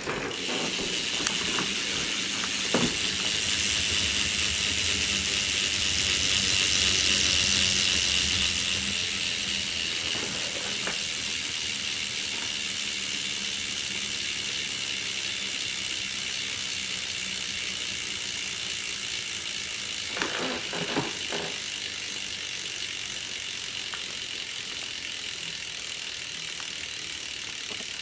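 Salt AM cassette rear hub on a BMX freewheeling, modified to be louder: its pawls click so fast they blend into a steady buzz that builds over the first few seconds, then gradually fades. A few short knocks come about two-thirds of the way through.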